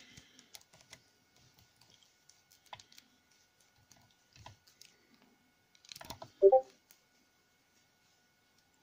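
Small metallic clicks and taps of a Kensington disc detainer laptop lock being handled with its key, with a brief, louder pitched sound about six and a half seconds in.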